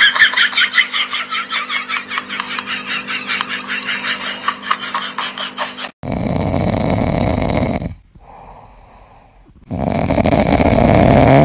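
A fast, even run of short pulses, several a second, for the first six seconds, then a sleeping kitten snoring: two long snoring breaths with a quieter gap between them.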